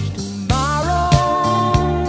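Background music with a steady beat and a long held melody note that wavers slightly and steps down near the end.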